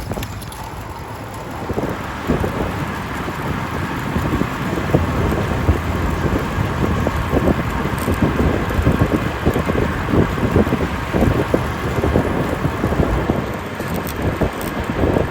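Wind buffeting the microphone over steady road and traffic noise, growing a little louder about two seconds in.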